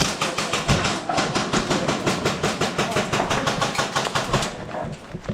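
Airsoft guns firing rapid full-auto, a fast even rattle of shots that stops about four and a half seconds in.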